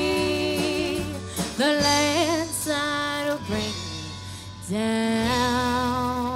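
Live band music with a woman's lead vocal singing long held notes with wide vibrato over guitars and a steady bass. A new note starts about two-thirds of the way through and is held.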